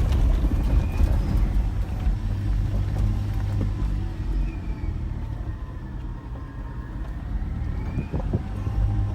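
Four-wheel-drive vehicle on a very steep track: a low, steady engine and drivetrain rumble, with a few knocks from the vehicle over the rough ground.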